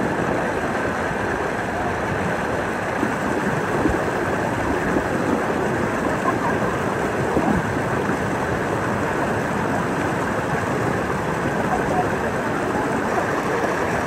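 Steady rush of river water pouring over small waterfalls and ledges.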